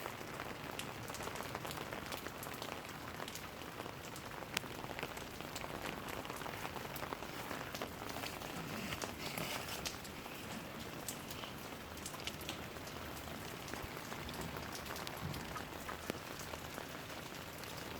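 Steady rain falling, with many separate drops striking close by as sharp ticks.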